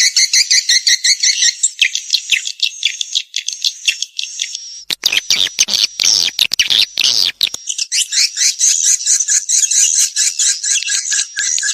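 Swiftlet call recording: fast, even runs of high, buzzy chirps repeated several times a second. Around the middle, a coarser, noisier stretch of a few seconds breaks in before the chirping resumes.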